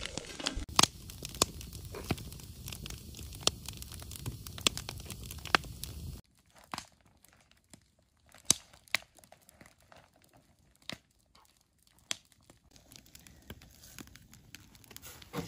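Wood campfire crackling, with sharp pops over a steady hiss. About six seconds in it cuts to a much quieter stretch with only faint, scattered clicks.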